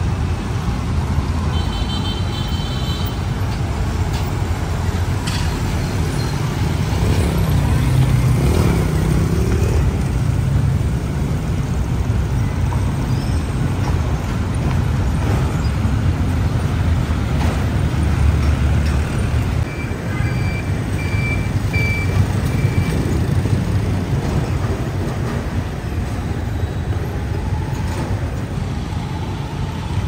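Busy road traffic: a steady rumble of engines and tyres. A short high tone sounds about two seconds in, and a run of about six short beeps comes about two-thirds of the way through.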